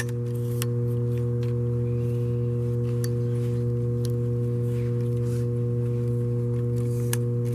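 A steady low hum with evenly spaced overtones throughout, with a few sharp clicks from the tripod's aluminium legs and leg-lock clamps being handled.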